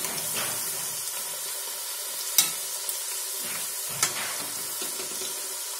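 Potato sticks deep-frying in hot oil in a steel kadhai, a steady sizzle, as a slotted spoon turns them. Two sharp metal clinks of the spoon against the pan come about two and a half and four seconds in.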